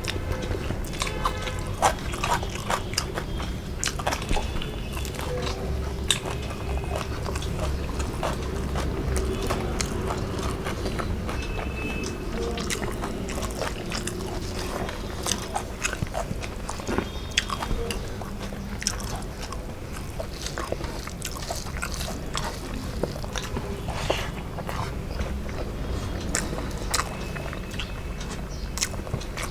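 Close-up chewing and mouth sounds of a person eating a rice meal, with frequent small wet clicks and smacks.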